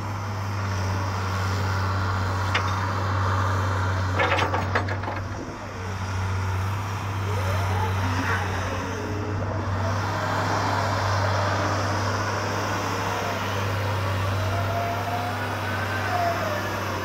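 Doosan EX100 excavator's diesel engine running with a steady low drone, with a quick cluster of metallic clanks about four seconds in.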